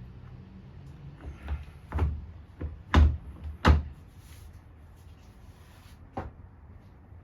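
A series of sharp knocks and thumps, about six in all. The two loudest come about three seconds in and again half a second later, and a lighter one follows near six seconds.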